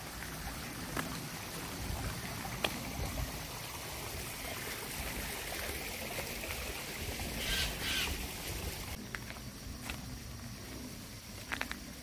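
Footsteps on a dirt forest trail with a stream trickling alongside. A single bird call stands out about seven and a half seconds in.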